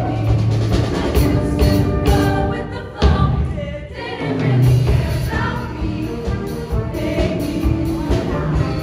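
Show choir singing a pop number with a live band and drum kit behind it. A sharp loud hit comes about three seconds in, followed by a brief drop in the music before the singing picks back up.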